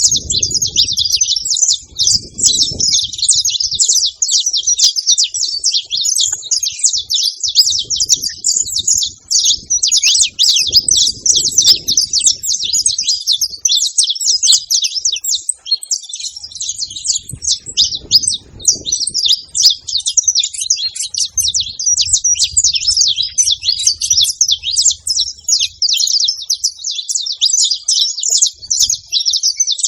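A flock of saffron finches chirping and calling together: a dense, unbroken chatter of many overlapping high chirps.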